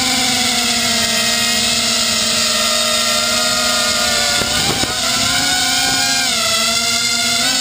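FPV250 quadcopter's four brushless motors (1806, 2400Kv) and propellers whining steadily in flight, heard close from the camera on the airframe. The pitch dips briefly about halfway through, drops a little later, and climbs again near the end as the throttle changes.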